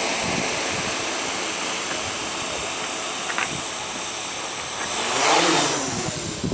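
Small Y6 hexacopter's six electric motors and propellers whirring steadily as it flies, with a steady high whine and gusty wind noise. About five seconds in it passes close, growing louder, then its pitch drops as it moves away.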